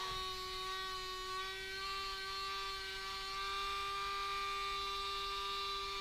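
Small handheld rotary nail grinder running at a steady speed with an even whine, filing down a pet bird's nails.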